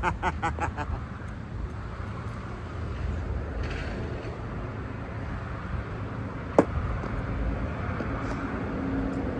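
A man's laughter in quick bursts for the first second, then a steady low rumble of road traffic. About six and a half seconds in comes a single sharp clack.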